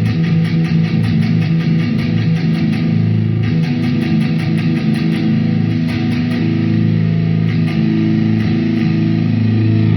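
Electric guitar played through a high-gain distortion tone with a Marshall Vintage 30 cabinet impulse response: heavy riffing, with rapid picked notes over sustained low chords.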